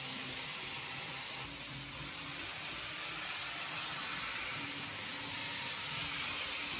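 Kato N gauge model trains running on track: a steady rolling hiss of small metal wheels on the rails, with a faint low motor hum that comes and goes.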